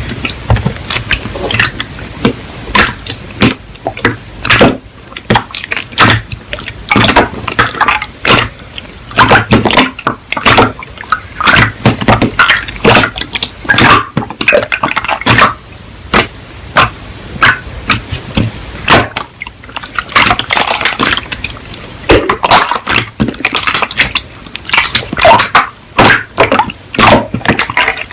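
Slime being squeezed and pressed by hand, giving a dense, irregular run of wet clicks and pops.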